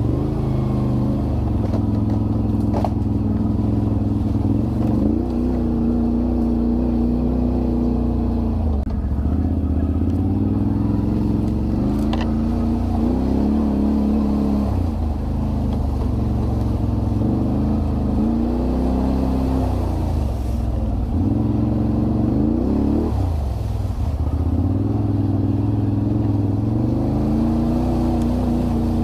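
ATV (quad bike) engine running under load, its pitch rising and falling again and again as the throttle is opened and eased. There are two sharp clicks, a few seconds in and about twelve seconds in.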